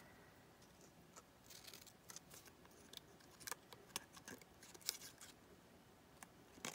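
Faint, scattered snips of scissors cutting paper cardstock, cutting a dovetail notch into the end of a paper strip.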